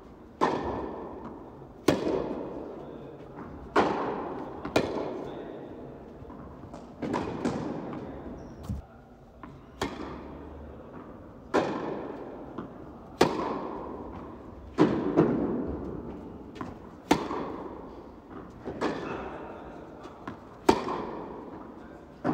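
Tennis rally: the ball cracks off the players' rackets and bounces on the court, sharp hits about every one and a half to two seconds, each ringing out in a long echo of the indoor tennis hall.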